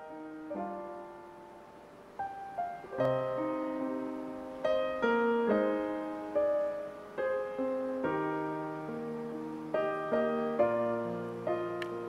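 Digital keyboards with a piano sound playing the slow instrumental introduction to a hymn. Chords are struck one after another and left to die away, growing louder about three seconds in.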